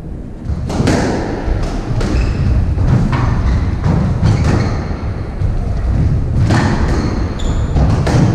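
Squash rally: the ball cracks off the rackets and the court walls in a quick, irregular run of sharp thuds about every half second to a second, with short high squeaks near the end.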